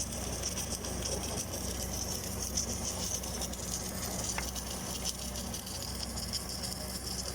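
Steady low electrical hum with an even high hiss over it, the continuous running noise of submerged arc welding equipment; a single faint tick about four seconds in.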